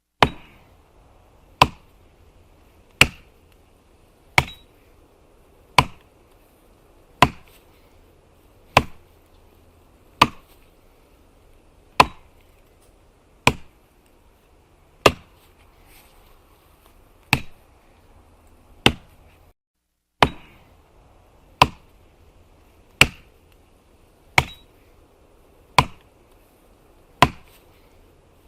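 Axe chopping wood: about nineteen sharp, evenly paced blows, roughly one every second and a half, each with a short ringing tail.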